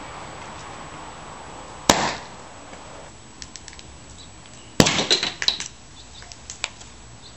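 Two loud sharp pops, about three seconds apart, of caps blowing off empty plastic water bottles that have been twisted tight to compress the air inside. The second pop is followed by a quick flurry of light clicks and rattles, then a few scattered ticks.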